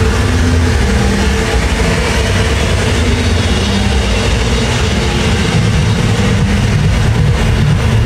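Loud trance music from a festival sound system, with a heavy bass and held chord notes that change every second or so.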